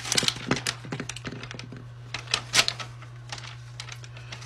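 Irregular light clicks, taps and rustles of close handling, densest in the first second and again past the middle, over a steady low hum.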